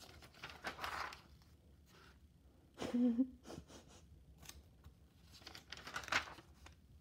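Pages of a spiral-bound paper notebook being turned by hand: three rustling swishes, about a second in, about three seconds in and about six seconds in. A brief low hum comes with the middle, loudest swish.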